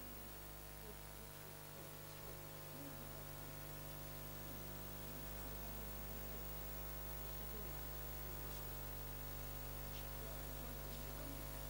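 Faint steady electrical hum with a layer of hiss.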